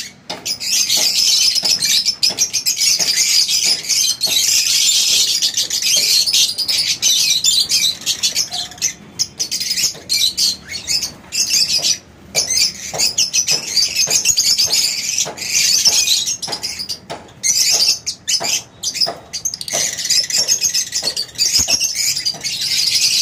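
A flock of caged lovebirds, Fischer's and peach-faced, chattering together: a dense, shrill stream of overlapping chirps with only a few brief lulls.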